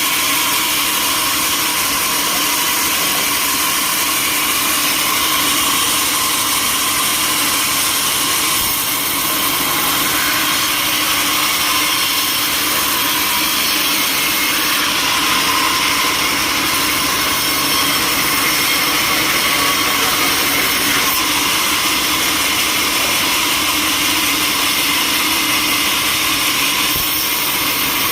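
Sawmill machinery running steadily, a dense, even hiss-like noise with no breaks.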